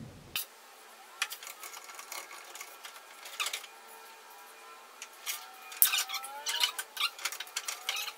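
Braided oil-cooler hose being pulled and fed around the front bodywork and inner wheel arch: irregular clicks, rattles and scrapes of the braid against metal, with a few short sliding squeaks, busier in the second half.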